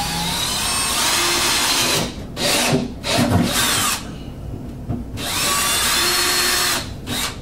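Cordless drill with a 7/16-inch twist bit boring a hole through a moulded plastic panel. It runs in several bursts with short stops, and the last run spins up with a rising whine.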